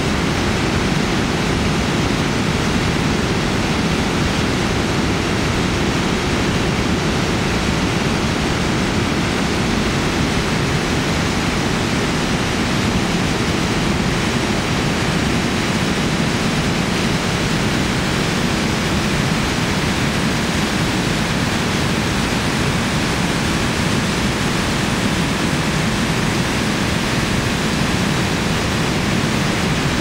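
Narva Falls: a broad waterfall on the Narva River at high flow, with water pouring over a wide rock ledge into churning rapids. A loud, steady rush of falling water.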